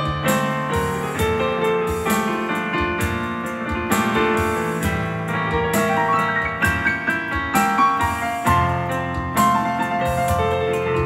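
Digital piano playing a piano-bar style arrangement: a melody over full chords and held bass notes, at a steady unhurried pace.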